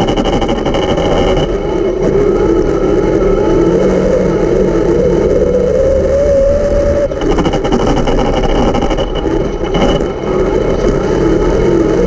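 Race car engines running hard on track, their pitch rising and falling as they accelerate and lift, with brief dips about seven and ten seconds in.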